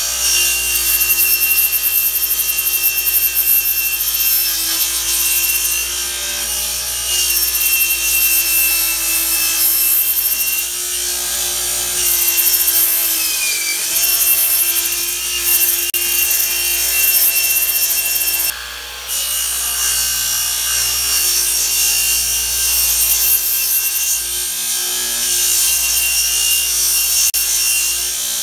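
Radial arm saw ripping a sheet of plywood: the motor's steady whine with the blade's cutting noise. The pitch sags briefly about halfway through as the blade loads, and the sound drops out for a moment about two-thirds through.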